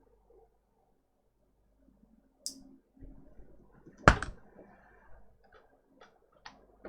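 Small tools being handled at a repair bench: a short hiss about two and a half seconds in, then one sharp click about four seconds in, followed by a few light ticks.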